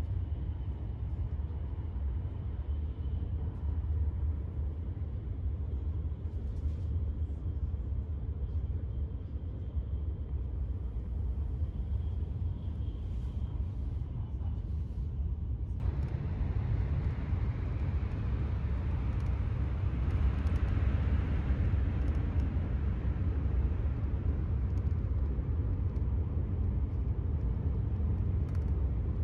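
Steady low rumble of a running Shinkansen bullet train (E5 series Hayabusa), heard from inside the passenger cabin. Just past halfway the noise turns a little hissier.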